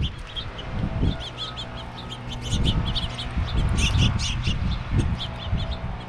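Small songbirds chirping in quick, repeated notes, thickest about four seconds in, over a low rumble and a faint steady hum.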